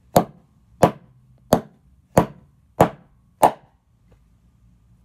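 Door wedge hammered down on a plastic Lego brick: six sharp knocks about two-thirds of a second apart, stopping about three and a half seconds in.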